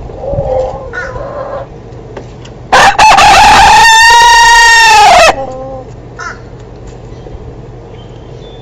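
A rooster crowing once, loud, for about two and a half seconds, the call ending on a falling note. Softer chicken calls come before and after it.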